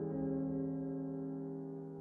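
Soft ambient instrumental background music: a held chord slowly fading.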